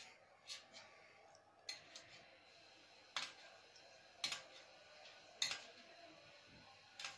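Metal spoon clinking against a steel plate, about six faint sharp clinks spaced roughly a second apart, as broth-soaked bread pieces are pressed down to soften.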